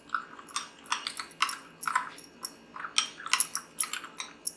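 Metal spoon stirring dry spice powder in a ceramic bowl, scraping and clicking against the bowl in quick repeated strokes, about two to three a second.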